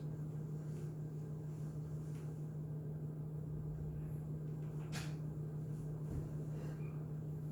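A steady low electrical or mechanical hum in a quiet room, with a single short tap or click about five seconds in.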